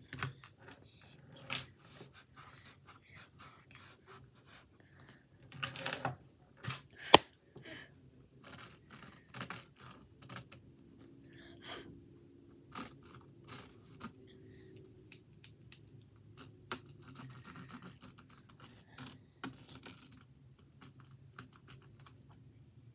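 Pencil scratching on a canvas in short, irregular strokes, mixed with scattered clicks and taps, one sharp click louder than the rest about seven seconds in.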